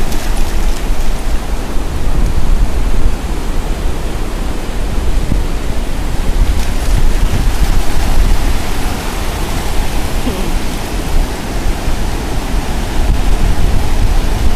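Wind buffeting the microphone with a heavy, uneven rumble, over the steady wash of breaking ocean surf.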